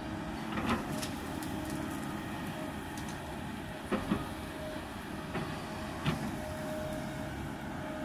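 Kobelco 220 hydraulic excavator working, its diesel engine running steadily under load with a thin whine that comes and goes. The bucket knocks against earth and rock several times: once a little under a second in, twice in quick succession around four seconds in, and again at about six seconds.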